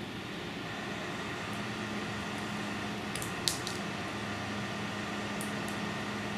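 Wire strippers working on a short piece of hookup wire: a couple of small clicks a little past three seconds in, the second the sharpest, and faint ticks later, over a steady low hum.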